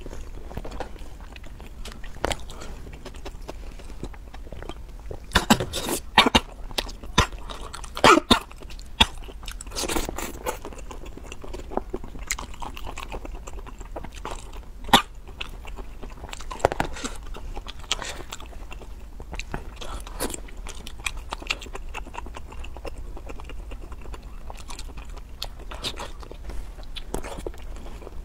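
Close-miked eating of red-sauced squid: wet biting, chewing and smacking, with a cluster of loud sharp clicks a few seconds in. A single sharp snip from kitchen scissors cutting the squid comes about halfway through.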